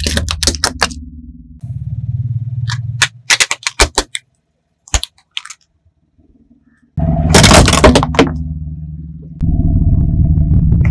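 Plastic toys cracking and snapping under a car tyre: a quick run of sharp cracks at the start, scattered cracks for a few seconds, then after a short quiet a loud crunch about seven seconds in. The car's engine rumbles low underneath.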